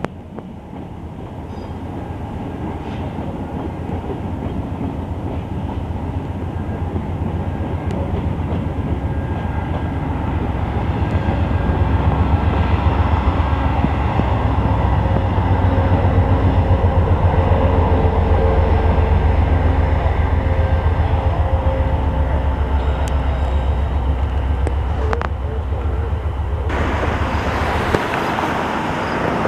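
VIA Rail passenger train of LRC cars hauled by a diesel locomotive passing, a steady rumble with rapid wheel clatter on the rails that builds to its loudest midway and then eases. Near the end the train sound cuts off abruptly to a steady hiss.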